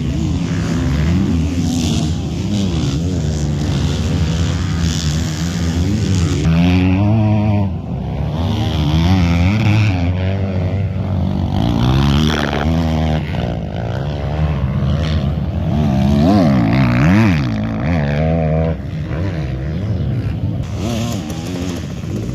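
Motocross bike engines revving hard and dropping back over and over as riders accelerate, shift and brake around the dirt track. Their pitch climbs and falls repeatedly, and at times two engines are heard at once.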